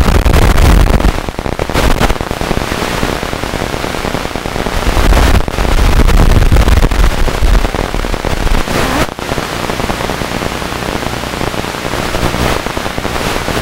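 Loud, crackling static hiss, the noise an analog FPV video receiver records on its audio channel, with brief dips about a second and a half in and about nine seconds in.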